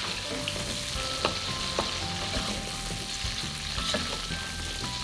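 Sliced jengkol (dogfruit) frying in hot oil in a wok, sizzling steadily, while a wooden spatula stirs and scrapes them, knocking sharply against the wok a few times.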